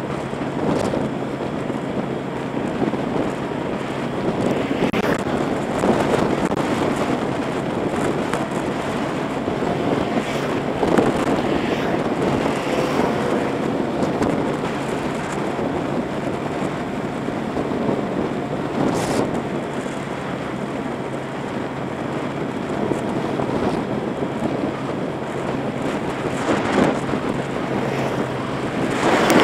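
Motorbike riding at a steady speed: wind rushing over the action camera's microphone, with the bike's engine running steadily underneath as a low, even hum.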